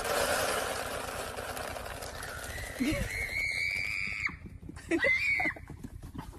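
Dry feed hissing as it pours into a plastic bucket, then a horse whinnying: one long high call held for over a second, then a shorter call about five seconds in.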